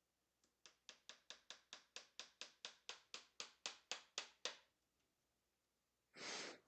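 Claw hammer, held short by its head, tapping small tack nails through fabric into a wooden canvas stretcher frame. About eighteen light, quick taps at four or five a second, growing louder, then a short rustle near the end.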